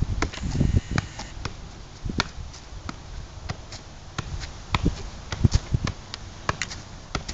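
Soccer ball being juggled: a string of sharp, uneven touches of the ball against foot and thigh, about two to three a second.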